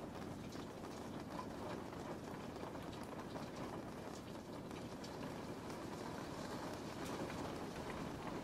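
Steady rain falling: an even hiss with scattered faint drop taps.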